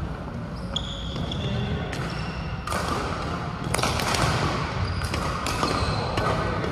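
Badminton play on a sports-hall court: a short high squeak about a second in, then several sharp racket-on-shuttlecock hits from about three seconds in, over a steady low hum.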